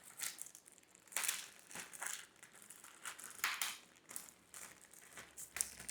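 Plastic cable-organizer pieces and their packaging handled by hand: faint, scattered crinkles and clicks with short pauses between them.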